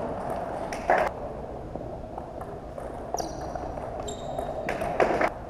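Table tennis rally in a large hall: sharp clicks of the celluloid ball off paddles and table, loudest about a second in and in a quick cluster near the end. Two short high squeaks come a little past the middle, over the steady murmur of the hall.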